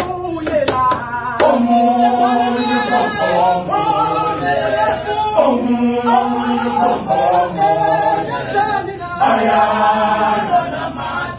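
Male choir singing a cappella in close harmony, holding sustained chords in phrases of a couple of seconds with short breaks between them.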